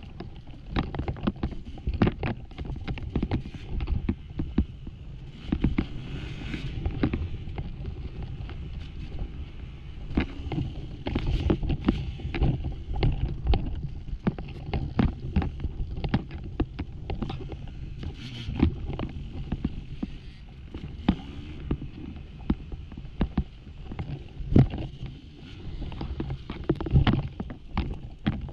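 Off-road dirt bike engine running, with frequent sharp knocks and clatter as the bike rides over loose, rocky ground.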